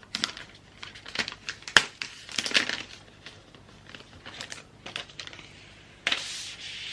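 Protective wrapping being pulled off a new laptop: crinkling and rustling with scattered sharp crackles, one loud crackle about two seconds in and a longer rustle near the end.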